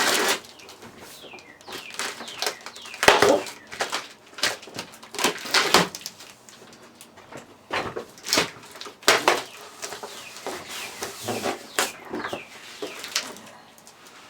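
Packing tape being torn and pulled off a cardboard box, in a series of short, irregular rips.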